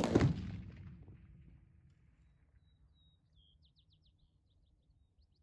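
A single rifle shot right at the start, its report echoing away over about a second and a half. Faint bird chirps follow, a quick run of short high notes about midway.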